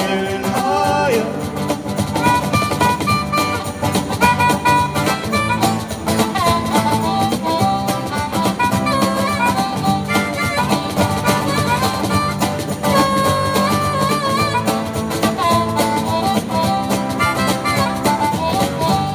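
Live acoustic band playing an instrumental break: a harmonica solo played into the vocal microphone, over strummed acoustic guitar and a cajon beat.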